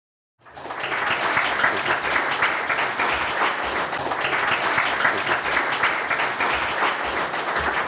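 Audience applauding: a dense patter of many hands clapping, starting suddenly about half a second in and keeping steady throughout.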